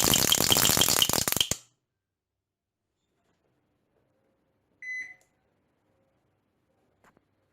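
Washing machine making a loud, harsh rattling noise with a steady repeating pulse, the strange noise it is faulting with, which cuts off sharply about a second and a half in. A single short electronic beep follows about five seconds in, then two faint clicks near the end.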